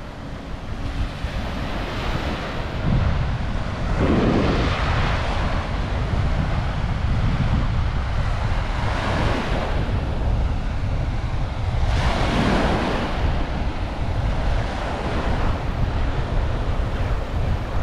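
Ocean surf breaking on a beach, with three louder waves crashing several seconds apart, over a steady low rumble of wind on the microphone.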